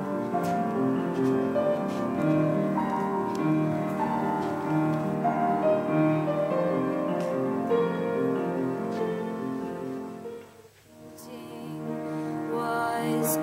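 Soundtrack music led by piano, slow sustained chords. It fades out almost to nothing about ten and a half seconds in, then swells back in.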